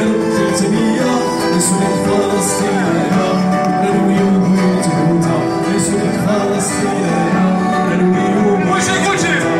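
Live Amazigh song played through a PA: steady strummed acoustic guitar with keyboard accompaniment and a singing voice.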